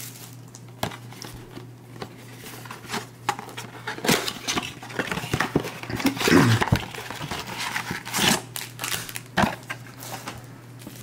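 Cardboard trading-card blaster box being handled and opened by hand: scattered taps and clicks of cardboard, with a few short rustles, the longest about six seconds in.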